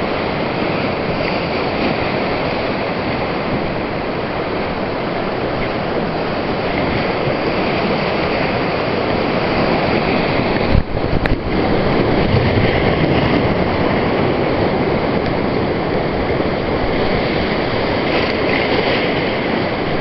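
Whitewater rapids rushing and churning close around an inflatable raft, a loud, steady noise of moving water. A single sharp knock comes about eleven seconds in.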